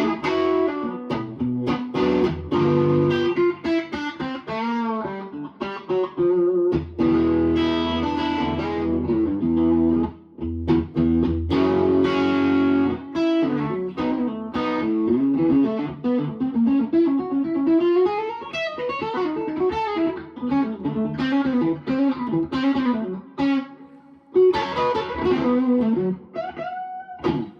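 Electric guitar played through an amp on a P90 bridge pickup with the guitar's volume on 10. It starts with ringing chords, then moves to single-note lines with notes that glide up and down in pitch.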